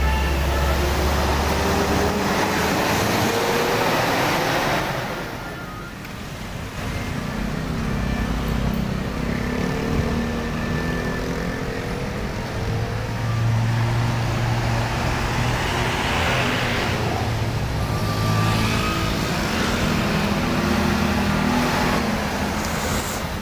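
Busy street traffic with large intercity coaches passing close. A Pahala Kencana coach's diesel engine pulls away with a rising whine in the first few seconds. Later, motorbikes, cars and a PO Haryanto coach go by, with a steady low engine hum in the middle.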